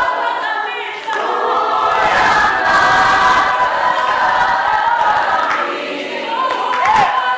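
A small mixed choir of young men and women singing a worship song together in harmony, unaccompanied. The singing dips briefly about a second in, then swells again, with a held note near the end.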